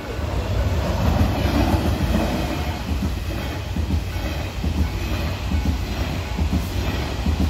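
KTX-Sancheon high-speed train passing close by: a loud, steady rumble and rush of wheels on rails, with a rapid irregular beat in the wheel noise.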